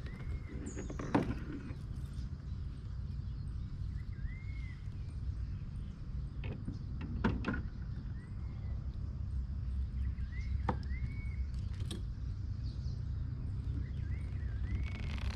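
A bird calls with a short arched whistle, about five times a few seconds apart, over a steady low rumble, with a few sharp clicks in between.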